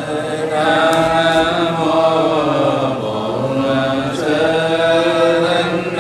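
Vietnamese Buddhist chanting by a monk into a microphone, in long drawn-out notes held a couple of seconds each.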